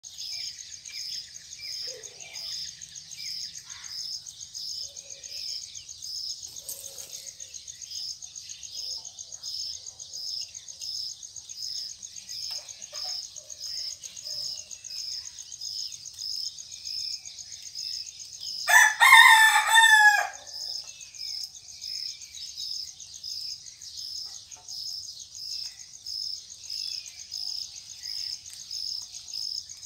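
Insects chirping steadily, about two pulses a second, over a higher insect hum and faint bird chirps. A little past the middle a rooster crows once, loudly, for about a second and a half.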